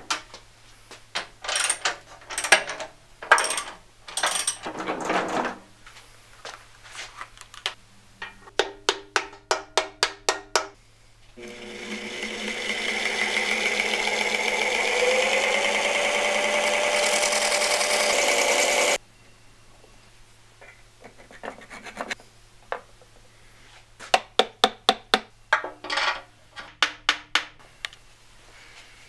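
Workshop assembly sounds: sharp metal clinks and knocks, and quick runs of clicks. About eleven seconds in, a small Sherline benchtop lathe spins up with the bandsaw's marred shaft in it and runs steadily for about seven seconds, then cuts off. More quick runs of clicks follow.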